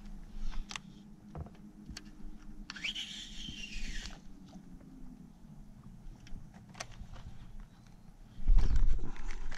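Baitcasting reel's spool whirring during a cast, its pitch climbing fast and then falling as the spool slows, among scattered light clicks and knocks. A loud low thump comes near the end.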